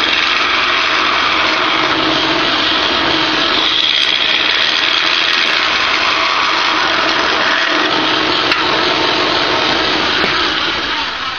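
Wood lathe running while a deep-flute bowl gouge cuts the inside of a cherry bowl: a steady, loud mix of motor and cutting noise that dies away just before the end as the cut stops.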